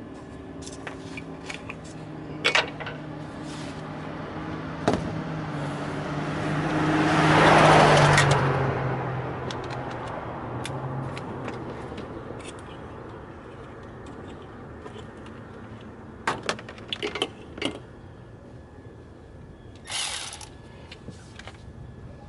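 A motor vehicle passing by: its engine hum builds to a peak about eight seconds in, dips slightly in pitch and fades away. Scattered sharp clicks and knocks come before and after, with a small cluster late on.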